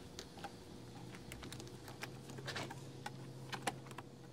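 Light clicks and snaps of the laptop display's plastic-rimmed back cover being pressed into place around the screen panel by hand. The clicks come scattered, with a short cluster about two and a half seconds in.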